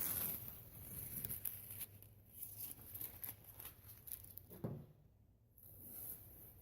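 Tape being peeled off a painted safe door: irregular crackling and tearing rustles that die down about five seconds in.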